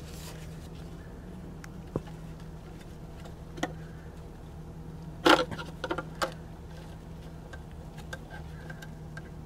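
Light clicks and rubbing from gloved hands working a small line free of its clip on the transmission's underside, with a louder clatter of clicks about five seconds in, over a steady low hum.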